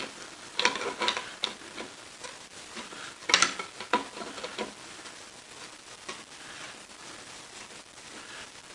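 Scattered light clicks, taps and scrapes of metal lathe tailstock parts and hand tools being handled during disassembly, with a sharper knock about three seconds in.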